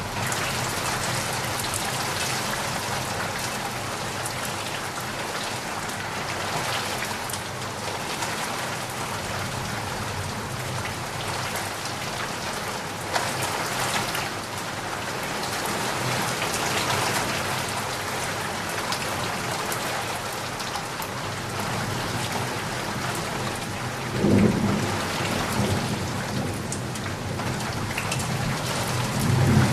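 Steady heavy rain falling, with a low rumble of thunder swelling about 24 seconds in and another starting near the end.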